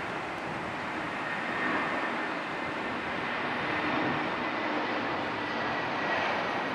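Airbus A320 jet engines on landing approach: a steady rushing jet noise with a faint high whine, growing slightly louder as the airliner comes closer.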